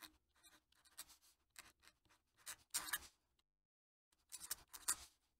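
Fountain pen nib scratching across paper while writing in cursive. It makes a run of short, faint, irregular strokes, pauses for a moment about three and a half seconds in, then makes a few more strokes.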